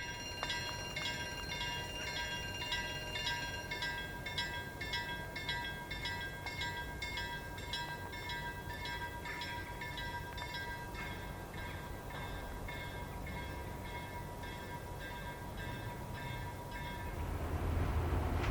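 Railway level crossing warning bell ringing about twice a second. It stops near the end as the low rumble of an approaching diesel freight train grows louder.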